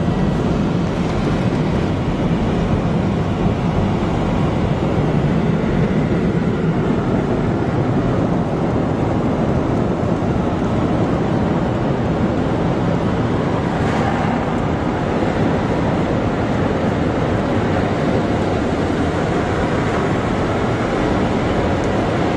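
An automatic car wash's power air dryers blowing over the car, a loud, steady rush of air.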